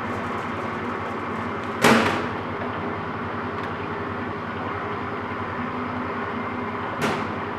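Rockwell engine lathe running with a steady mechanical hum, broken by two sharp clunks, the first about two seconds in and the second about five seconds later.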